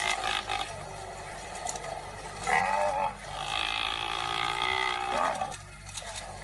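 Wild animal calls in a struggle between lions and African buffalo: several drawn-out cries over rough field noise, the loudest about two and a half seconds in.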